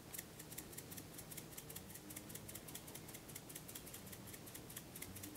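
Hand-twisted spice grinder grinding dried thyme into a bowl: faint, rapid, even clicking, several clicks a second.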